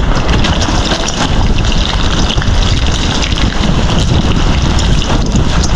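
Strong wind blowing on the microphone: a loud, uneven rumble with most of its weight in the low end.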